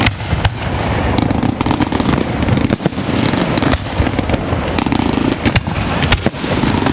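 Fireworks going off in a continuous barrage: rapid bangs and crackling over a constant rumble, with many sharp reports a second.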